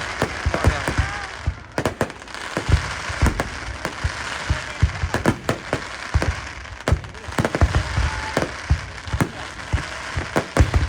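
Aerial fireworks going off in quick, irregular succession: many sharp bangs and booms over a hissing crackle.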